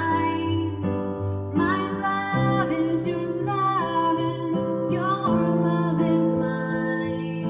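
A woman singing a slow, gentle song with held notes while accompanying herself on an electronic keyboard.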